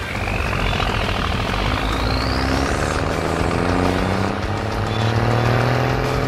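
Cartoon truck engine sound effect revving up, its pitch climbing steadily over the last few seconds before cutting off suddenly at the end, over background music. A high rising sweep plays in the first couple of seconds.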